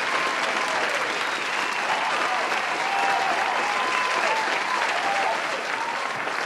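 A crowd clapping and cheering: dense, steady applause with voices calling and whooping over it, easing slightly near the end.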